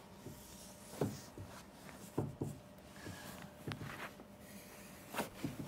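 Faint rubbing with a few soft knocks and clicks from someone shifting about on a cushioned lounger, picked up by a body-worn microphone.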